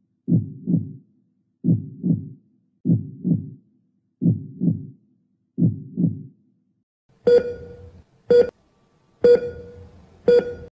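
Heartbeat sound effect: five pairs of low thuds, lub-dub, about one pair every 1.3 seconds. From about 7 seconds in it gives way to four sharp hits with a ringing tone, about one a second.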